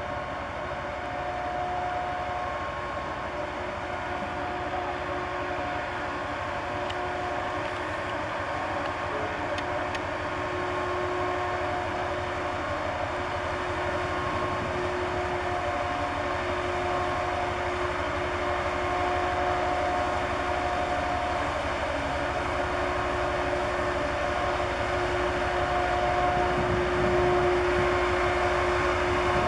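Steady drone of a large cable ship's engines and machinery as it passes close by, with a faint humming tone that comes and goes. It grows slowly louder as the ship nears.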